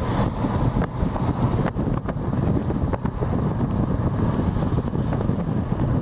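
Wind buffeting the microphone over the steady rumble of a moving car's road noise.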